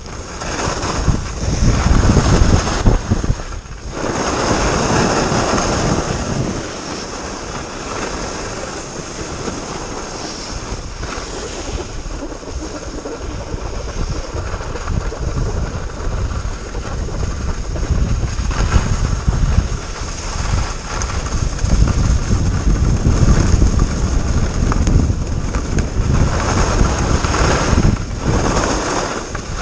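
Wind buffeting the microphone of a skier's camera during a fast run down a groomed piste, with the steady hiss and scrape of skis on the snow. It rises and falls with speed and turns, dipping briefly early on and growing louder again in the second half.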